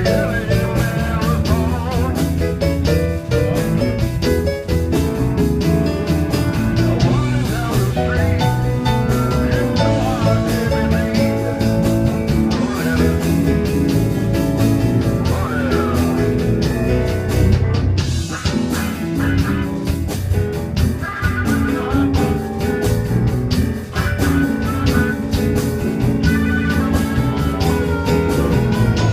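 Live band playing a slow blues in E: guitar lines over bass and a steady drum beat.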